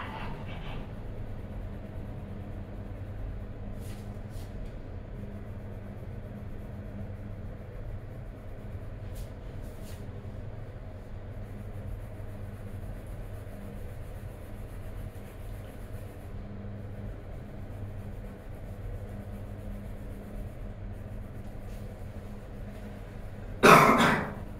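Coloured pencil shading on paper, a faint scratching over a steady low room hum, with a short loud knock near the end.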